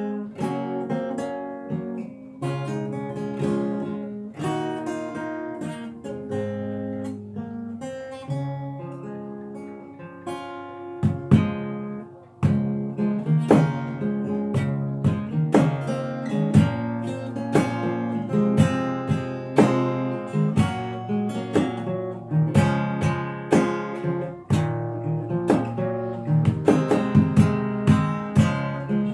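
Solo acoustic guitar played fingerstyle: a plucked melody over bass notes. About twelve seconds in the playing dips briefly, then comes back louder with sharper, more strongly plucked notes.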